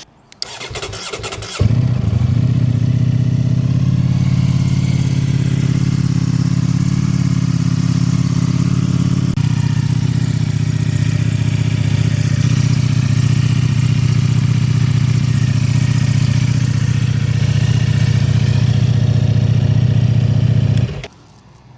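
Ducati Streetfighter V4's V4 engine turned over by the starter for about a second, then catching and running steadily. The sound cuts off abruptly about a second before the end.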